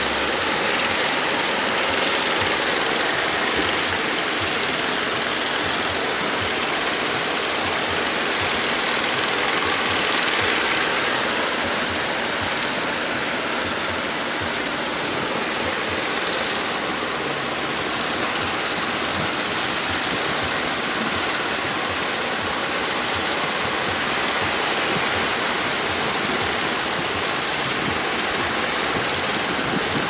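Breaking surf, a steady loud wash of rushing water.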